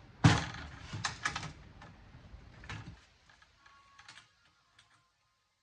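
A sharp knock, then a run of light clicks and clatter from small hard parts of dismantled electronics being handled and sorted, thinning out after about three seconds and stopping.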